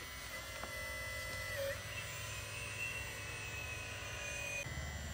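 Electric whine of a radio-controlled Hitachi hydraulic excavator's pump motor as it works its boom and bucket. The pitch steps up about two seconds in and drops back near the end, over a low hum.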